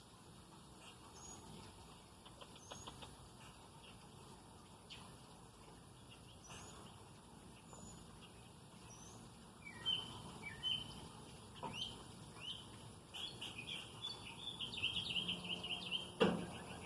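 Backyard birds chirping: faint, scattered high chirps at first, then louder and busier chirps and trills in the second half. A faint steady high-pitched hiss runs underneath, and a single sharp click sounds near the end.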